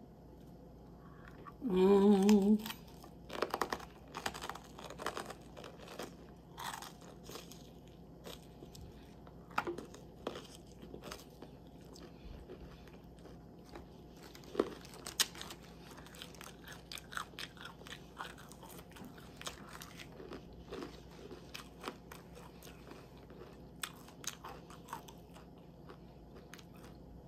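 Close-miked chewing of a crunchy lettuce salad, with sharp crisp crunches and mouth sounds scattered throughout. A brief wavering hum from the eater about two seconds in.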